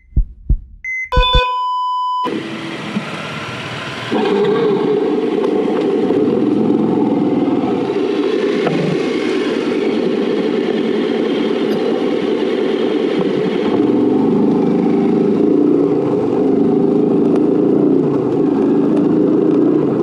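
A few short electronic beeps and tones from an intro sting, then a steady rush of wind and motorcycle engine noise picked up by a camera on the bike while riding, growing louder about four seconds in.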